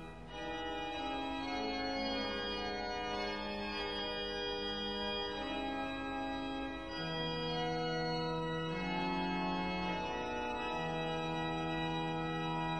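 Organ music: slow, sustained chords held for a second or two each, with a lower voice moving step by step beneath them.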